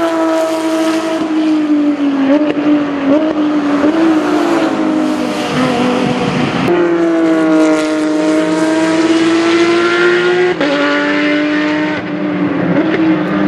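Porsche 997 GT3 Cup race car's 3.6-litre flat-six racing engine running hard through a corner, its loud exhaust note shifting in pitch with throttle and gear changes. The note jumps abruptly twice, then sweeps slowly down and back up.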